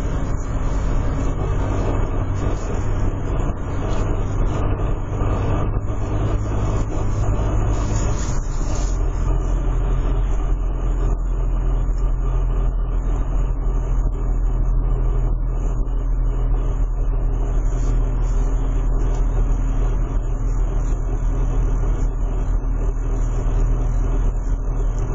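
Renault Laguna II 1.9 dCi four-cylinder turbodiesel running steadily, with a continuous pitched drone the owner calls a strange sound. About eight seconds in the low hum drops and deepens.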